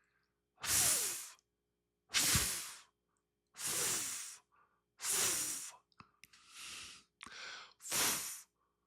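A man's voice making the English /f/ sound, a long breathy 'fff' with teeth on lip, repeated about seven times with short gaps; two of them, past the middle, are quieter and shorter.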